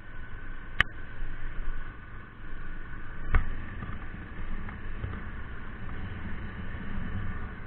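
Steady low outdoor rumble with two sharp clicks, one about a second in and a louder one about three and a half seconds in.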